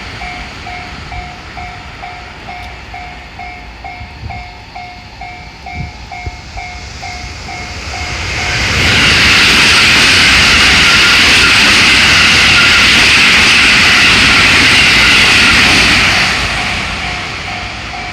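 Japanese railroad crossing bell ringing its kan-kan warning at about two strikes a second. About eight seconds in, a JR West 223 series electric train passes over the crossing; its loud rush of wheels on rail drowns out the bell for some eight seconds, then fades, and the bell is heard again near the end.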